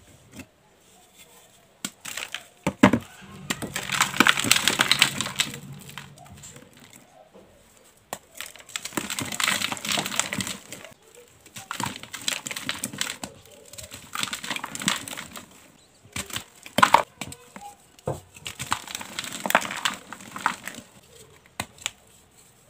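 Hands crushing reformed blue gym chalk donuts, the chalk crunching and crumbling into powder in bursts with short pauses between. There are a few sharp cracks, one about three seconds in and one past the middle.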